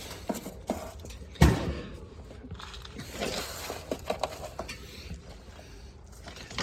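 Scattered handling noises on an outdoor AC condenser unit: short clicks and rustles, with one sharp knock about a second and a half in.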